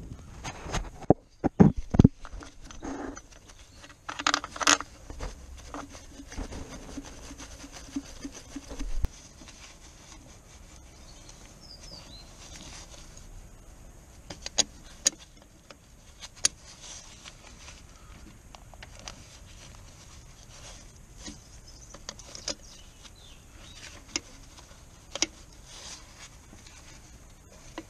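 Metal clinks and knocks from a steel ring spanner being fitted and worked on a bolt in an engine bay. They come thick and irregular for about the first nine seconds, then thin out to a few single sharp clicks.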